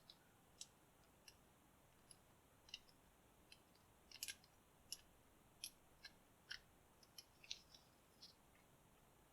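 Faint, irregular metallic clicks and ticks of a homemade half-diamond pick working the pins inside a Master Lock 716D bike lock's cylinder during single-pin picking.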